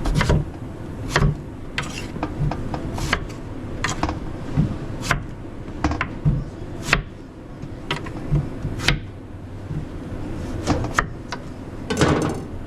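Irregular knocks and clinks of pans and metal utensils being handled in a commercial kitchen, about one every second, with a cluster of clatter near the end, over a steady kitchen hum.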